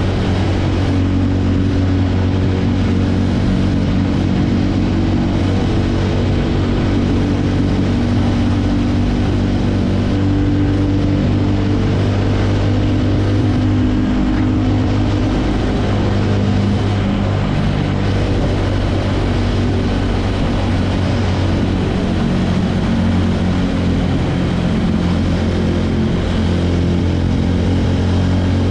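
TVS Ronin motorcycle's single-cylinder engine running at a steady cruise. The exhaust note holds nearly constant, with a slight change in pitch a little past halfway.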